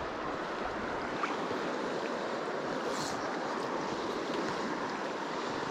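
Creek water rushing steadily over rocks in a shallow riffle, an even wash of sound.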